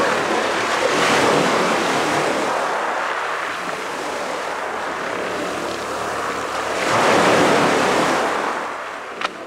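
Loud rushing noise like surging water or surf, swelling twice and fading away toward the end, with one sharp click shortly before it ends.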